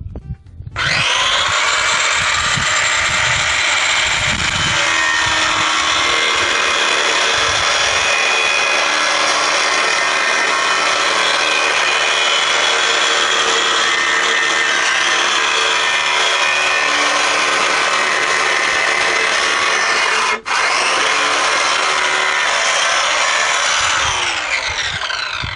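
Power saw cutting through a cast plaster tile: a loud, steady cutting noise that starts about a second in. It breaks off for an instant about twenty seconds in, then dies away as the motor winds down near the end.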